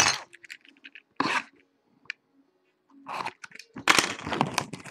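Cellophane shrink wrap on a sealed trading-card box crinkling and crackling as the box is handled. It comes in short bursts with gaps between, and is densest near the end.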